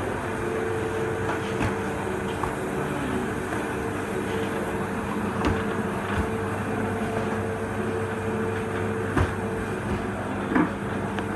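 Steady electric motor hum of commercial kitchen machinery, with a few sharp knocks and clatters over it.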